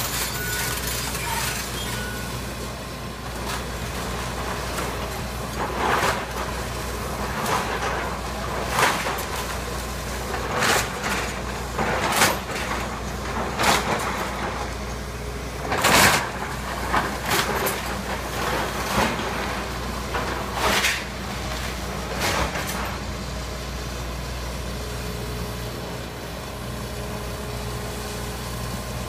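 Hitachi tracked excavator's diesel engine running steadily, with irregular crashes of timber breaking and falling as the wood-frame house is torn down. The crashes come every second or two through the middle of the clip, the loudest about halfway through.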